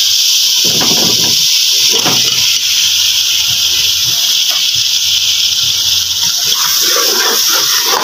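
Chicken pieces and masala sizzling in hot oil in an aluminium pot, a steady hiss, while a steel ladle stirs them.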